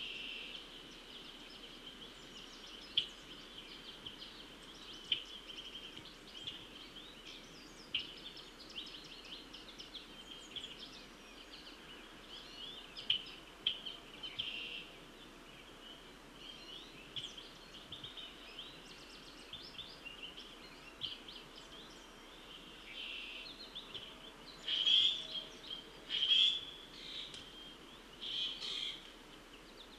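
Songbirds calling around a wooded pond: many short chirps and trills over a steady high-pitched hum, with several louder calls near the end.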